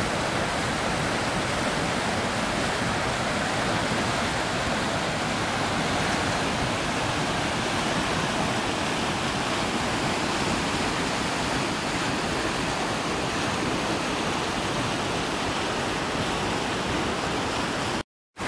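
River rapids in high water, whitewater rushing steadily over boulders at a flow of about 20 cubic metres per second. The sound cuts out briefly near the end.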